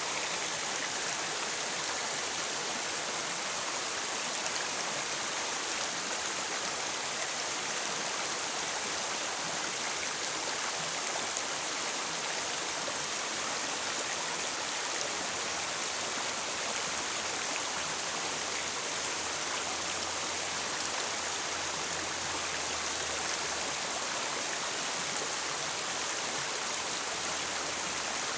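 River water rushing steadily: an even, unbroken flow.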